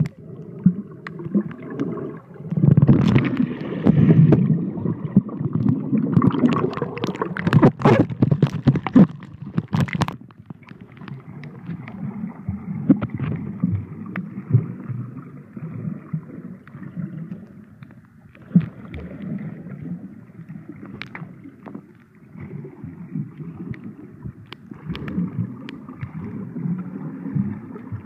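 Muffled water sloshing and gurgling heard from underwater, with sharp knocks and clicks through the first ten seconds, then a steadier, irregularly pulsing low rumble.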